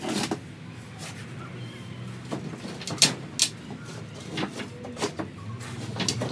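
Tools and timber knocking and clattering on a wooden floor as they are picked up and put down: a handful of sharp knocks, the two loudest about three seconds in.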